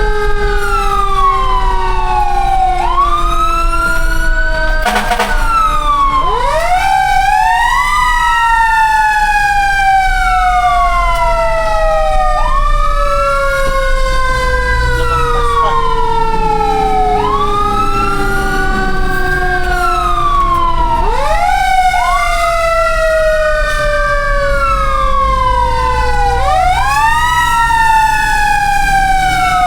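Several fire truck sirens wailing at once, out of step. Some rise quickly and fall over a few seconds, while others slide slowly down for many seconds before jumping back up. A short click sounds about five seconds in.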